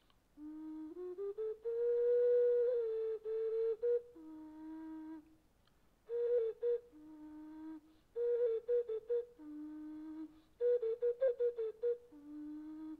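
Background music: a solo flute plays a slow melody in short phrases. It moves between a higher note with quick ornaments and a lower held note, with brief pauses between phrases.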